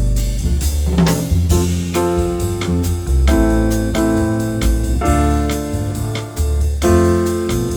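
Background music: keyboard and electric piano over a steady bass line.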